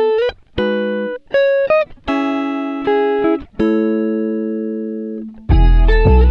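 Background music: single notes played one after another, each starting sharply and fading as it rings out. A louder, fuller passage with deep bass comes in near the end.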